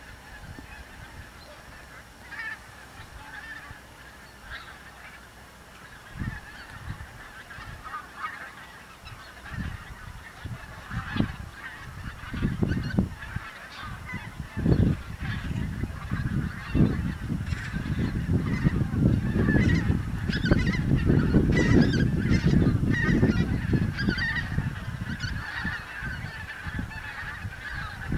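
A large flock of wild geese calling in a continuous chorus of overlapping honks, with wintering Bewick's swans among them. An irregular low rumble builds up partway through and is loudest in the second half.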